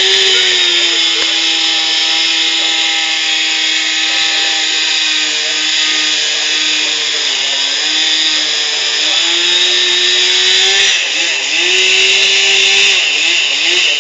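Chainsaw running at high revs, its pitch sagging and recovering as the load changes, then revved several times in quick succession near the end.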